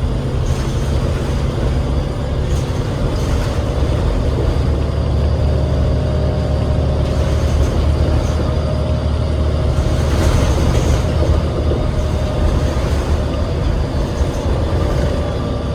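Cabin sound of a New Flyer D40LF transit bus under way, its Cummins 8.9 L six-cylinder ISL diesel running steadily with a constant low rumble.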